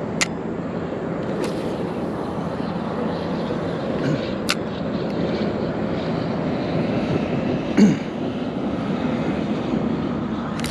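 Steady rumble of distant engine noise that swells a little through the middle and eases near the end, with two short sharp ticks.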